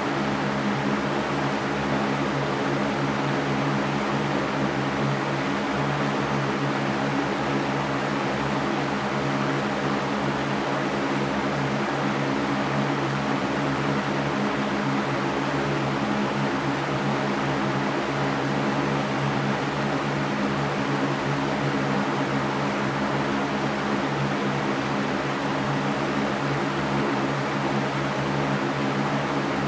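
Electric fan running steadily: an even rush of air with a low hum from the motor, unchanging throughout.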